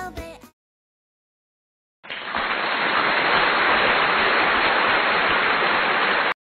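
Music fades out, then silence. About two seconds in, steady, even background noise of a restaurant dining room starts, with no distinct voices, and it cuts off abruptly near the end.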